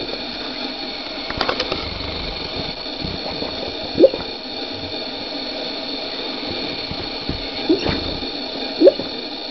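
Sleeping bullmastiff snoring, with three short, rising squeaky snorts: one about four seconds in and two near the end. A few soft clicks come about a second and a half in.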